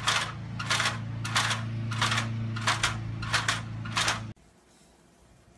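Aluminium stepladder clacking and scraping on asphalt as it is walked along, about two strokes a second, over a steady low hum; it stops abruptly about four seconds in.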